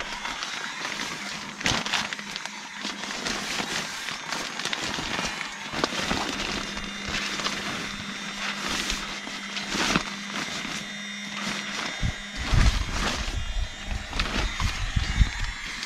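Nylon sleeping bag rustling and crinkling as it is shaken out and smoothed by hand, with a few heavier low thumps of handling starting about twelve seconds in.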